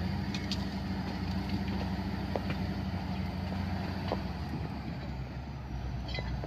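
A road construction machine's engine running steadily with a low, even hum, with a few light clicks and knocks over it.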